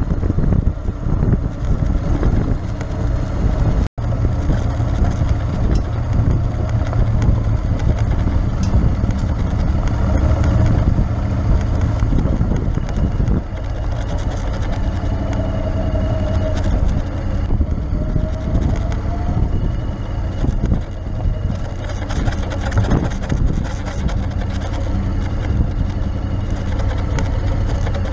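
Honda X-ADV scooter's engine running steadily on the move, with rumble and crackle from the tyres on a gravel track and wind on the microphone. The sound cuts out for an instant about four seconds in.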